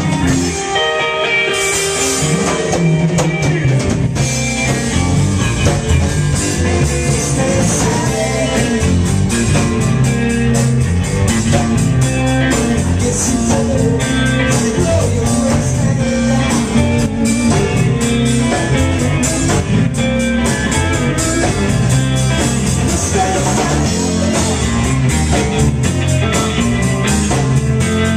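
Live rock band playing loudly: electric guitar, bass guitar and drum kit, with a singer.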